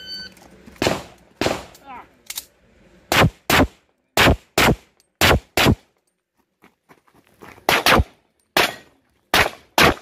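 A shot timer beeps once, then a 9mm 1911 pistol fires about a dozen shots, mostly in quick pairs, starting about a second in. There is a pause of about two seconds in the middle, and the shots pick up again near the end.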